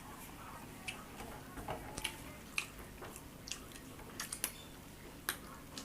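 Close-up chewing of mutton curry and rice: soft, wet mouth smacks and clicks at irregular intervals.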